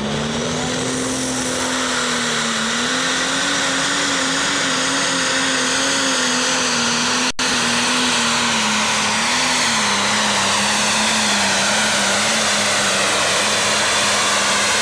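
International pro stock pulling tractor's turbocharged diesel engine running loud at full throttle under heavy load as it drags a weight-transfer sled. The pitch holds fairly steady with small wobbles and sinks slightly a little past halfway. The sound cuts out for a split second about halfway through.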